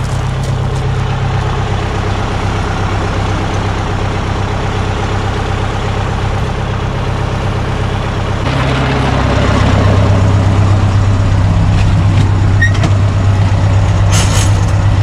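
Heavy diesel engine idling steadily. About eight seconds in, a fire extinguisher starts discharging onto a burning tyre, adding a loud rushing hiss over the engine.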